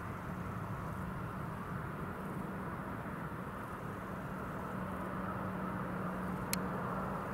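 Airbus A330 jet engines on landing approach: a steady rumble with a low held hum, growing a little louder toward the end. A single sharp click about six and a half seconds in.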